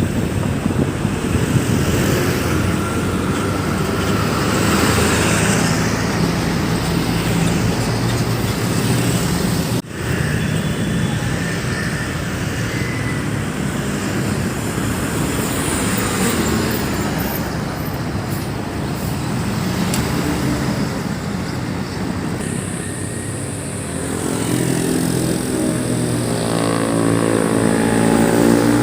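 Road traffic: vehicle engines and tyre noise passing continuously. Near the end one engine gets louder and rises in pitch as it approaches.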